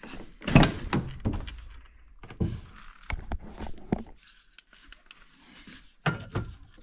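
Chevrolet 2500HD pickup's door being opened: a heavy clunk about half a second in, then several lighter knocks and clicks.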